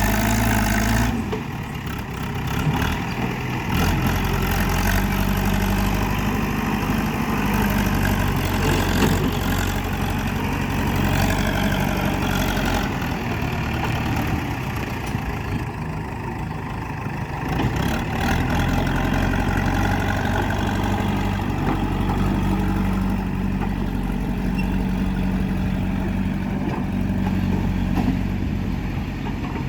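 JCB 3DX backhoe loader's diesel engine running steadily, its pitch shifting a few times as the machine works.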